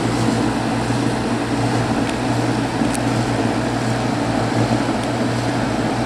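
Goodman GHP15M 5-ton packaged heat pump running on low speed: a steady rush of the outdoor fan over a steady low hum, reading about 80 dB at three and a half feet.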